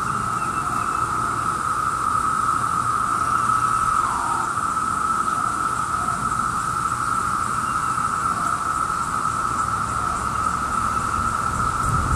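Chorus of Brood II periodical cicadas (Magicicada): a loud, steady drone held at one high pitch without a break.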